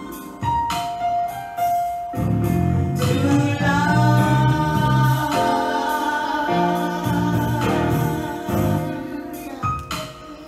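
Two women singing a slow gospel song through microphones over keyboard accompaniment, holding long notes and ornamenting them with vocal runs.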